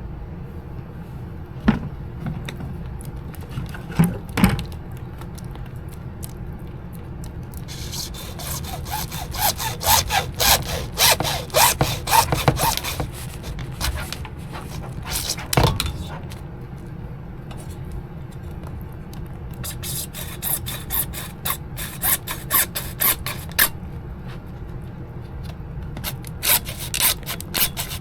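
Hand saw cutting through an AC condensate drain pipe in three spells of quick back-and-forth strokes, with a few knocks against the pipe in between.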